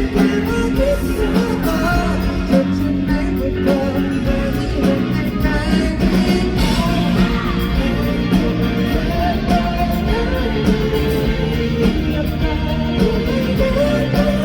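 A live band playing a pop-rock song with a sung vocal and guitar, loud and without a break.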